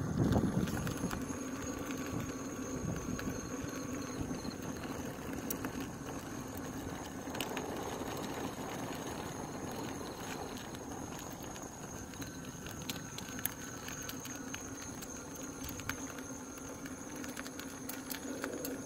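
InMotion V10F electric unicycle rolling along: a steady hum of motor and tyre with a faint high-pitched whine and a few light clicks.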